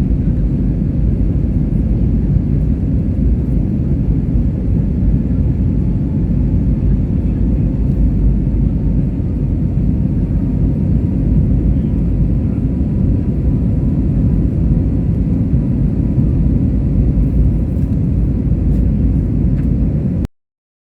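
Airbus A320neo jet airliner in flight after takeoff: a steady, loud rumble of engines and airflow with faint steady whines above it, cutting off suddenly near the end.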